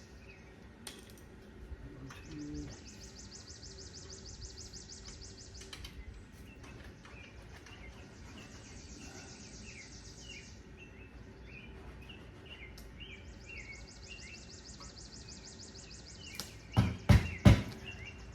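Insects trilling in long pulsing spells of several seconds, with birds chirping throughout. About a second before the end come four sharp, loud knocks in quick succession.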